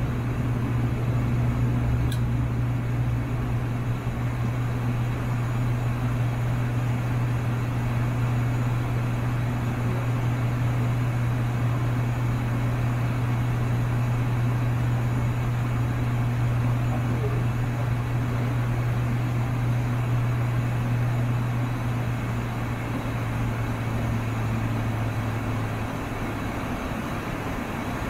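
The ATR 72-600's twin turboprop engines and propellers at takeoff power, heard from the cockpit during lift-off and climb-out: a loud, steady low drone. The drone drops slightly in pitch and loudness about 25 seconds in.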